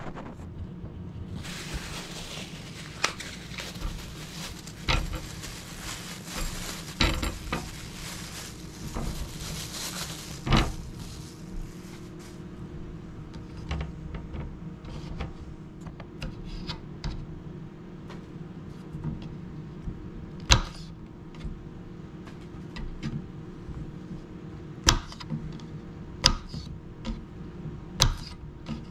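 Paper towels rustling and crinkling as raw game-bird meat is patted dry. After that come scattered knocks of things set down on a cutting board. Near the end a kitchen knife slices jalapeño peppers, tapping sharply on the board a few times.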